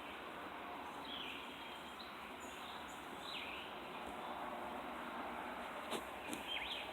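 Riverbank ambience: a steady low hiss with a few faint bird chirps, about a second, three seconds and six and a half seconds in, and a single sharp click near six seconds.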